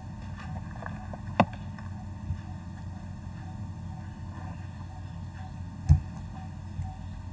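Steady low electrical hum and faint hiss picked up by the microphone, broken by two sharp knocks, one about a second and a half in and a heavier thud just before six seconds, with a smaller tap in between.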